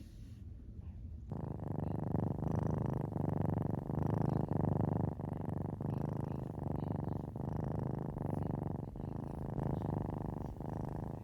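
Domestic cat purring steadily and loudly, growing louder about a second in, the purr swelling and dipping with each breath.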